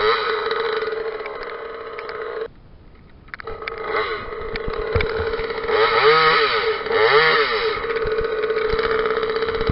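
Parker top-handle chainsaw's small two-stroke engine running, cutting out briefly about two and a half seconds in and then picking up again. It is revved up and let back down twice in the second half.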